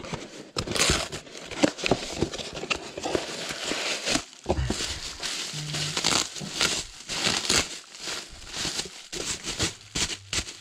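Bubble wrap crinkling and crackling in the hands as a part is unwrapped, with a cardboard box being handled at the start. The crackles come irregularly and densely throughout.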